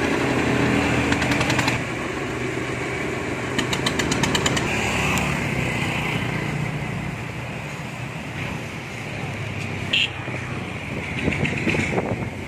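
Small boat engine running with a steady chugging hum. About two seconds in it gives way to a quieter, rougher motor noise that rises and falls.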